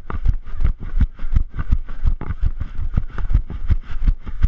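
A runner's footfalls thudding steadily, about three strides a second.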